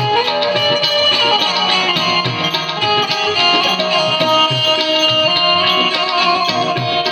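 Instrumental interlude of an Indian keyed banjo (bulbul tarang) playing a bright, ornamented melody over a steady tabla rhythm.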